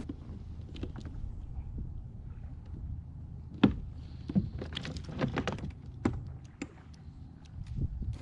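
Irregular knocks and clicks of gear being handled aboard a fishing kayak, over a low steady rumble.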